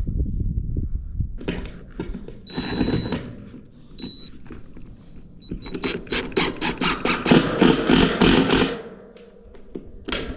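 Rapid rhythmic clattering from tool work, about six or seven sharp strokes a second for nearly three seconds in the second half. Before it come a couple of brief high-pitched squeaks.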